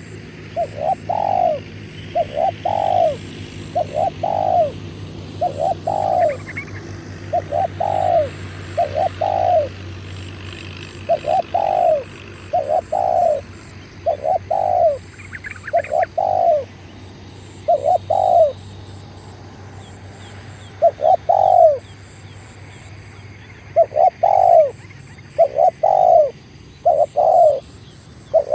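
Spotted dove cooing: a long series of short, low, arched coo notes, about one a second, with a short break about two-thirds through. Faint twittering of small birds in the background.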